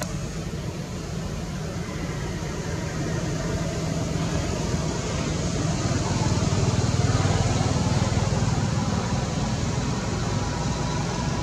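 Low, steady engine rumble that swells to its loudest about seven seconds in and then eases off.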